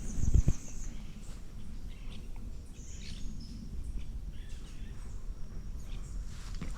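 Wild birds calling: a fast, high trill in the first second, then a few scattered faint chirps. Under them is a steady low rustle, with a few low thumps near the start.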